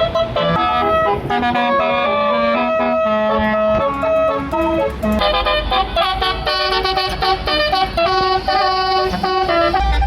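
A bus's Basuri musical horn (telolet) playing a tune of quick changing notes. Low engine rumble comes in about halfway through.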